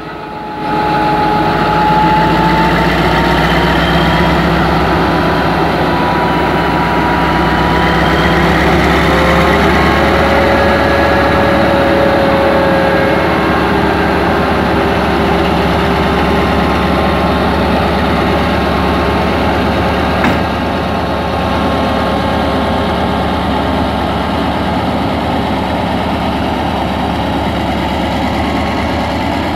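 Alsthom diesel-electric locomotive No. 4118 running steadily at low speed close by, its engine drone carrying a few whining tones that drift slowly up and down in pitch. A small click about twenty seconds in, after which the sound is slightly quieter.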